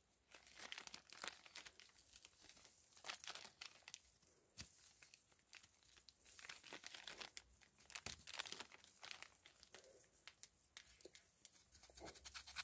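A knife blade faintly scraping and peeling bark from a chinaberry branch in short, irregular strokes, with small tearing sounds as strips of bark come away. The bark is being cut off in a ring to bare the branch for air layering.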